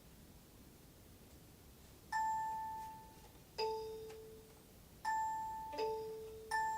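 After about two seconds of quiet, five single ringing notes sound one after another, each fading away, alternating between a high note and the note an octave below. These are the opening notes of a simple plucked piece.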